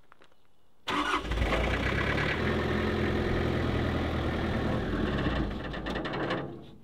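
An old truck's engine running steadily, cutting in abruptly about a second in and fading away near the end.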